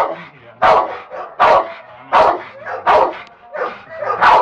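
Bandog barking about six times at an even pace, a bark every three-quarters of a second: challenge barking at a decoy's bite sleeve during protection training.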